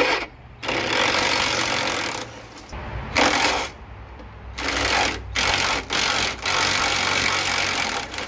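Cordless impact driver with a 10 mm socket on an extension, run in a series of spurts to back out 10 mm bolts: one long burst, a few short ones, then another long one near the end.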